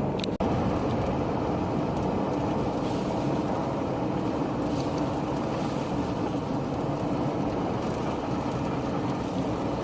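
Steady rumble of a running motor vehicle's engine, with a brief break in the sound about half a second in.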